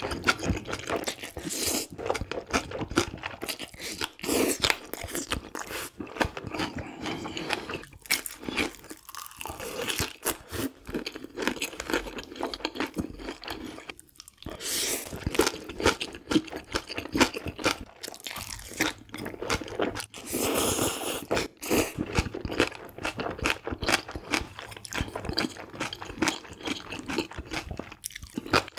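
Mukbang eating sounds: a man slurping and chewing mouthfuls of black-bean-sauce noodles, with wet smacking and crunching clicks in quick succession.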